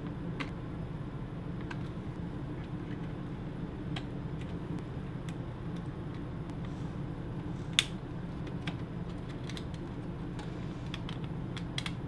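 Scattered small plastic clicks and taps from flex-cable connectors being seated by hand on a Panasonic plasma TV's upper buffer board. One sharper click stands out about eight seconds in, and several come close together near the end, over a steady low hum.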